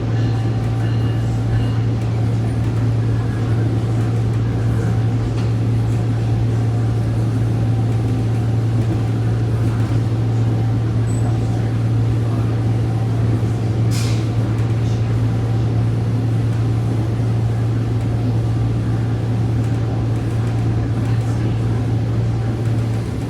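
SMART diesel multiple-unit train running steadily, heard from inside the car: a constant low drone over track rumble. A brief high squeak or click comes about fourteen seconds in.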